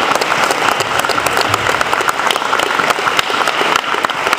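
An audience applauding: many people clapping at once, a dense, steady patter of hand claps.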